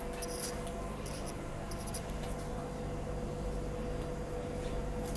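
Steady electrical hum at a Metro platform with a train standing at it, doors open, with a few light scratchy clicks near the start and about two seconds in.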